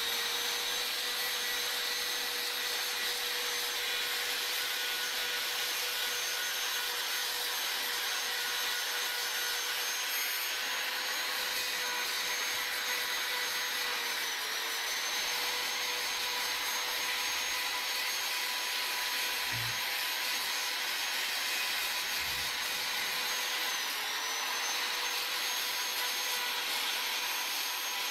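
Handheld electric rotary tool whining steadily at high speed while its improvised sandpaper head sands the inside of a charango's wooden body. The pitch dips briefly twice, about halfway through and again near the end.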